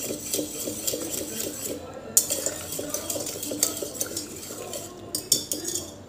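Wire whisk beating thick cooked dal in a stainless-steel pressure cooker: a fast, continuous rattle of the wires against the steel, with a few louder clinks.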